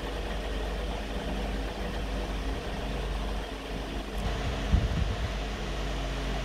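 Steady hum of a room cooling fan, with a few soft low knocks about three-quarters of the way through as a ruler is laid down on the pattern paper.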